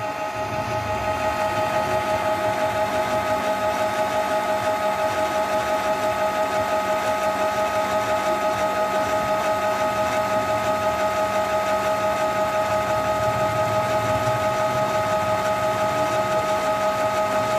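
Canon G-series ink-tank printer's pump mechanism running steadily during its ink-charging cycle, drawing ink through the tubes to the printhead. It makes an even whine with a fast, regular pulse.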